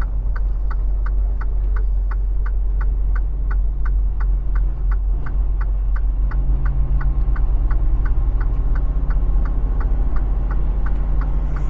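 Semi-truck's diesel engine droning inside the cab, with the indicator flasher clicking steadily about three times a second.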